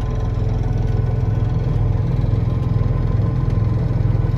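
Diesel engine of a Case IH Magnum 7230 tractor running steadily, heard from inside the cab as a deep, even hum.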